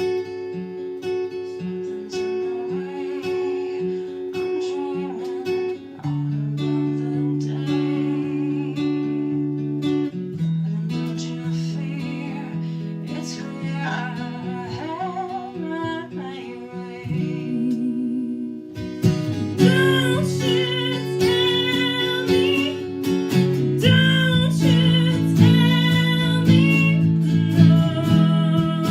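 A band performing a song led by strummed acoustic guitar chords, growing louder and fuller about two-thirds of the way through.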